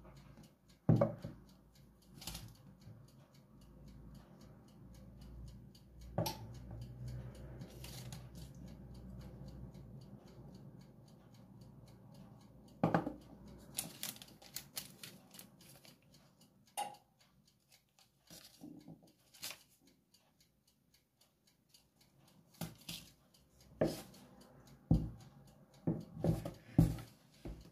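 Bowls and containers being handled and set down on a kitchen countertop: scattered knocks and clinks, bunched together near the end, over a faint low hum that stops about halfway through.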